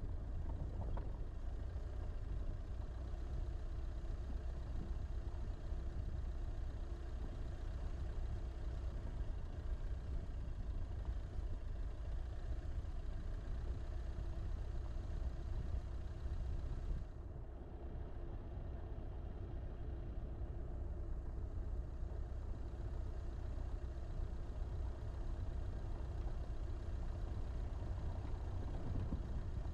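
Car driving slowly along a dirt track, heard from an onboard camera: steady low engine and road rumble that dips briefly a little past halfway.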